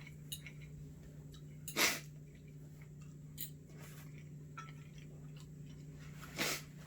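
Two short, sharp breaths or sniffs from a person, the first about two seconds in and the second near the end, over a steady low hum with a few faint small clicks between.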